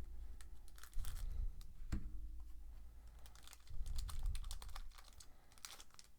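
Trading cards being handled and flipped through: a scatter of light clicks and rustles, with a small knock about two seconds in.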